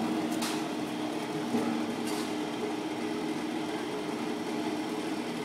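Steady mechanical hum with a few held low tones, with a couple of faint clicks about half a second and two seconds in.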